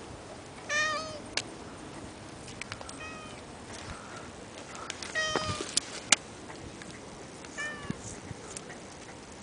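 A cat meowing four times, a couple of seconds apart, with a few sharp clicks in between; the loudest click comes about six seconds in.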